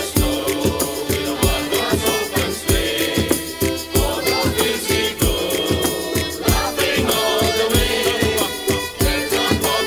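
A group of mixed voices singing a Christmas carol together over a music accompaniment with a steady beat, about three thumps every two seconds, and a rattling percussion part.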